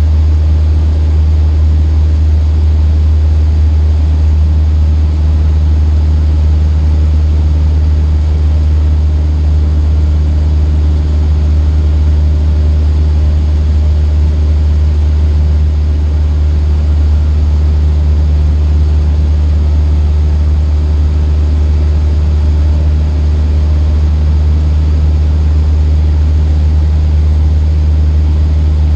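Cessna 152's four-cylinder Lycoming engine and propeller running steadily, a loud, even low drone heard from inside the cabin.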